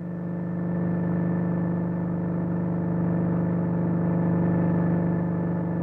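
Helicopter engine and rotor running: a steady drone that grows louder over the first second and then holds.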